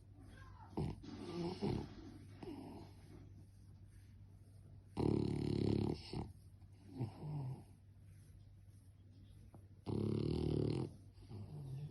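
French bulldog snoring: two loud, buzzing snores about five seconds apart, each lasting about a second, with softer breaths in between.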